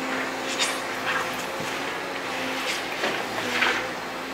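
Liebherr R926 compact excavator's diesel engine running steadily under hydraulic load, with several short high-pitched scraping sounds as the tiltrotator bucket works the slope surface.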